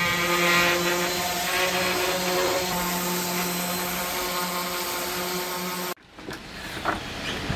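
DeWalt random orbit sander running steadily against a hardwood door frame, a steady hum over the rasp of the sanding pad. It cuts off suddenly about six seconds in, leaving a few light knocks.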